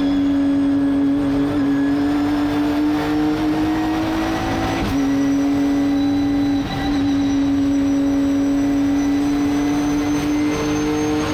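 Nissan GT-R GT3's twin-turbo V6 engine racing, heard from inside the cockpit: a steady high engine note that climbs slowly as the car accelerates, then drops sharply at an upshift about five seconds in, dips briefly near seven seconds and climbs gently again.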